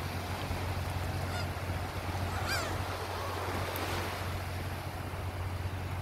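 Black-tailed gulls calling a few times, the loudest call about two and a half seconds in, over the steady wash of small waves on a sandy beach and a constant low rumble.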